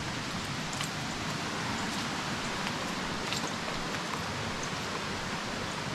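Steady rush of flowing water over rocks, as from a creek or small cascade, with a few faint ticks mixed in.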